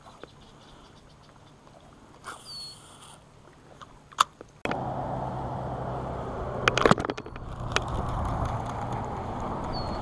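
Bow-mounted electric trolling motor switching on about halfway through and running with a steady low hum. A quick run of clicks from the baitcasting reel comes a couple of seconds after it starts; the first half holds only a few faint clicks.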